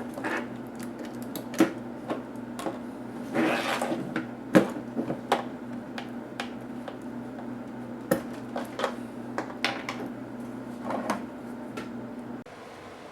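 Scattered clicks, taps and knocks of laptop parts and screws being handled and set down on a hard surface, over a steady low hum that stops near the end.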